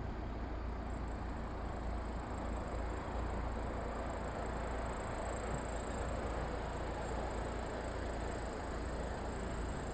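Steady, distant rumble of a passing train hauled by a 060-EA electric locomotive, blended with general city noise. A thin, steady high-pitched whine runs through it from about a second in.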